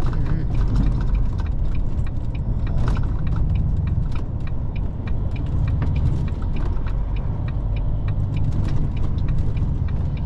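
Lorry engine and road rumble heard from inside the cab while driving at low speed, a steady deep rumble with frequent light clicks and rattles over it.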